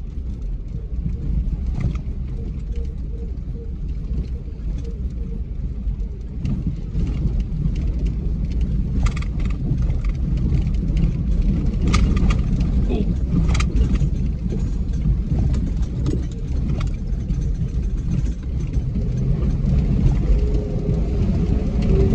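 Dodge Grand Caravan driving slowly along a muddy, slippery dirt road, heard from inside the cabin. A steady low rumble of engine and tyres runs throughout, with scattered clicks and knocks, the clearest a few around the middle.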